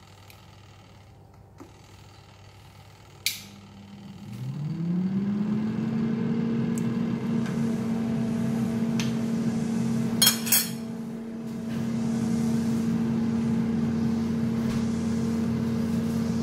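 Philips air fryer starting up: a click, then its fan motor spins up with a rising hum about four seconds in and settles into a steady hum. A few sharp clicks come about ten seconds in.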